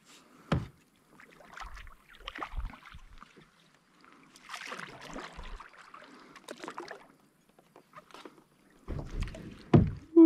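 Scattered hollow knocks and bumps on a Perception Pescador 10 sit-on-top plastic kayak as the angler shifts his weight and gear, with a few seconds of swishing in the middle and the loudest thumps near the end, as he nearly loses his balance.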